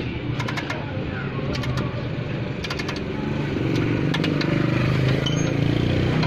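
Hand ratchet wrench clicking in three short runs while turning the rear shock absorber's lower mounting bolt. A motor vehicle's engine runs steadily underneath, growing louder about halfway through, and is the loudest sound.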